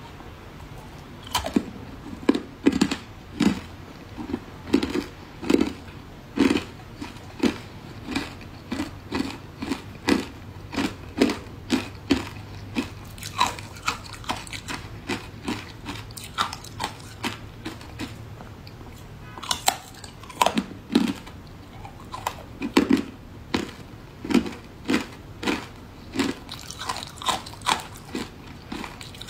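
Close-up crunching of matcha-powdered ice between the teeth: sharp bites and chews at about one to two a second, with a short lull about halfway before the crunching resumes.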